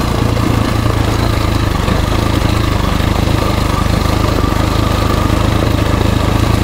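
2017 KTM 350 EXC-F's single-cylinder four-stroke engine running steadily under way on the trail.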